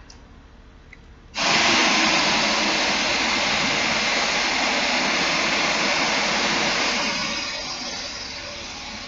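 A sudden, loud rushing hiss starts about a second and a half in, holds steady, then eases down and continues more quietly near the end.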